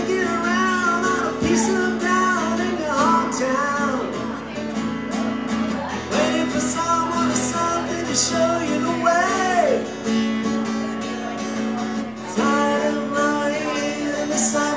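A man singing over his own strummed acoustic guitar. The voice drops out twice for a couple of seconds, leaving only the guitar.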